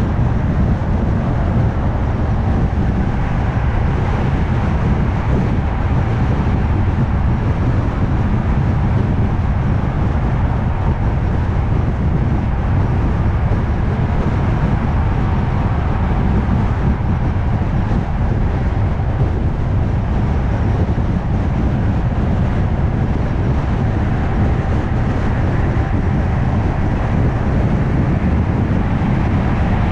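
Steady road noise of a car cruising at highway speed: a deep, even rumble of tyres and engine with a softer hiss above, no changes or separate events.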